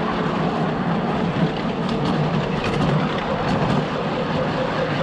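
Miniature ride-on train running along the track: a steady rumble of wheels on rails.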